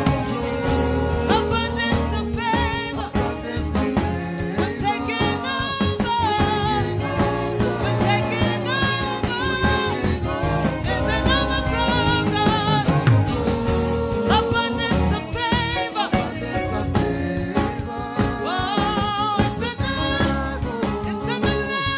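Church music team performing a gospel worship song: sung voices over a live band with a steady drum beat.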